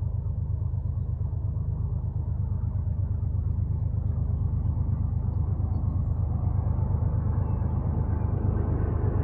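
Steady low rumble that slowly grows louder, with a semi-truck's engine and tyres coming up near the end as it approaches.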